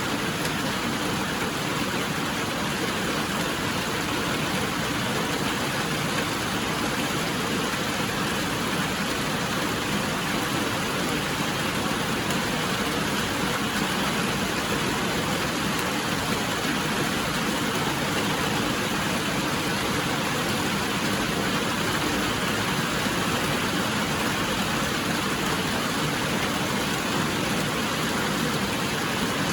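Steady, even rainfall with no pauses or changes.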